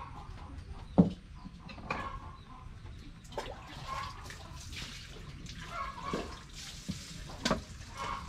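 Outdoor ambience: a steady low rumble with scattered short animal calls and a few sharp knocks, the loudest knock about a second in.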